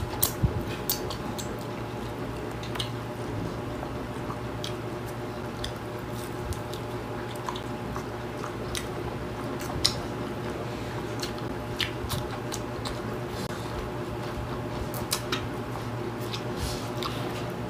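Close-miked mouth sounds of two people eating with their hands: scattered wet smacks and clicks of chewing and lips over a steady low hum.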